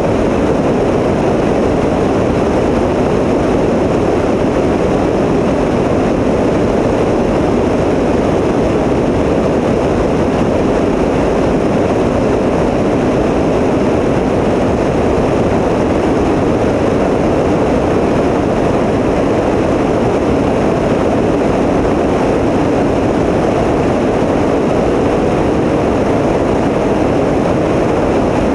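Tecnam P92 light aircraft's engine and propeller droning steadily, a loud even noise with no change in power.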